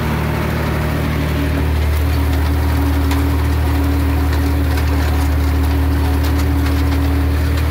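Tractor engine running steadily under the load of a towed haymaking implement. About one and a half seconds in, the engine note grows a little louder and deeper and a steady hum joins it, with a few faint clicks.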